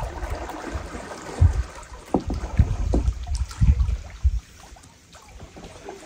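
Lake water lapping and slapping, with irregular low thumps that die down about four and a half seconds in.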